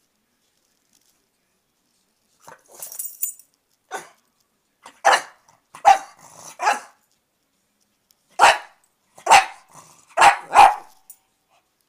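A pug barking in short, loud barks, about eight of them in two bunches after a quiet start.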